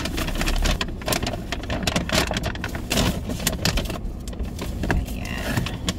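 Brown paper takeout bag crinkling and rustling as it is opened and handled, in quick irregular crackles.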